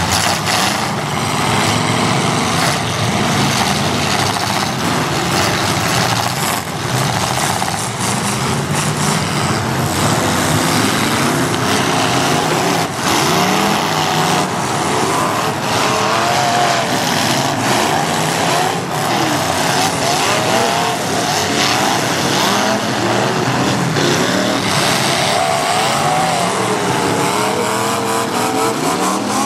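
Many demolition derby cars' engines revving up and down at once, with a few sharp crunching impacts as the cars ram each other.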